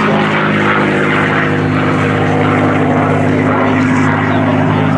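P-51D Mustang's Rolls-Royce Merlin V12 engine running steadily at power, a loud, even propeller-aircraft drone.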